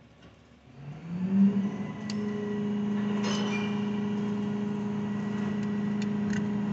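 Car engine starting and settling into a steady idle, with its pitch climbing about a second in before it levels off. A few light clinks sound over it.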